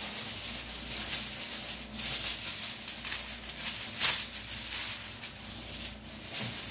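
Sheet of aluminium foil crinkling and rustling as it is handled and folded, in repeated crackly bursts, the sharpest about four seconds in.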